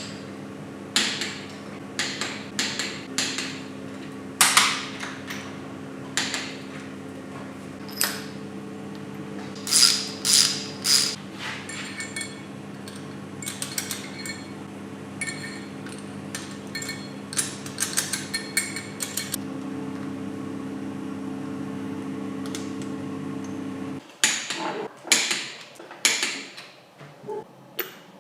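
Metal tools and engine parts clinking, tapping and knocking at irregular intervals, over a steady machine hum that cuts off suddenly near the end.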